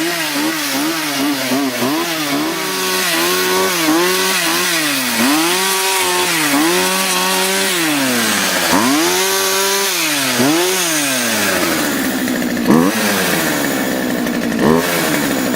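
Two-stroke chainsaw cutting into a tree trunk, its engine speed repeatedly climbing, holding and dipping as the chain bites and recovers. Near the end the engine settles to a lower, steadier speed, with a couple of short knocks.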